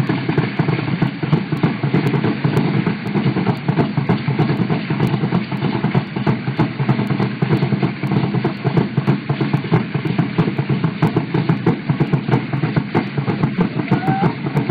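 Drum beaten in a steady, fast rhythm for dancing.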